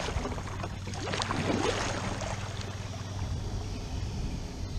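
Kayak paddle strokes splashing and dripping in shallow creek water, quieting after about three seconds as the kayak runs into the grass of the bank.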